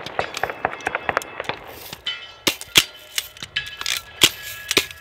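BB guns firing a string of sharp, irregular shots, several a second, with music coming in about two seconds in.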